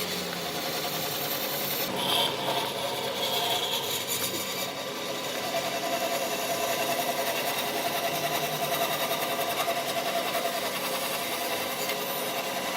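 A power tool running steadily on wood, a constant machine whine with a fast, even chatter that grows a little stronger about midway.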